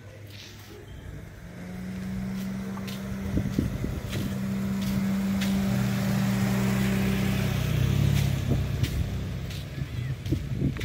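A Mitsubishi Mirage hatchback driving slowly past close by. Its engine hum builds over the first couple of seconds, stays loud for several seconds, then fades near the end.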